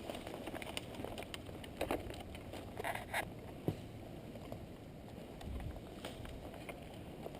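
Rustling and crackling of a player moving through brush, with a steady low rumble of wind on the helmet camera's microphone and a few scattered sharp clicks.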